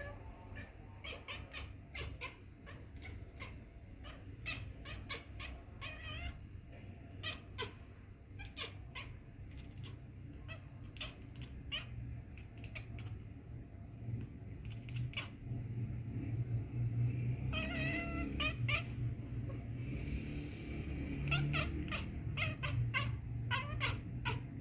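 Domestic cat making a long series of short, rapid chirping calls, with a longer, more drawn-out meow about eighteen seconds in, over a steady low hum.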